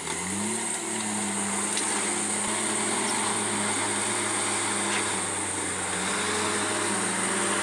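Komatsu D51 crawler bulldozer's diesel engine running steadily under load, its pitch dipping briefly at the start and recovering.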